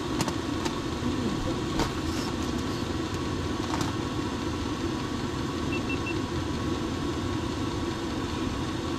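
A steady mechanical hum, like a motor running at idle. A few light clicks come in the first four seconds.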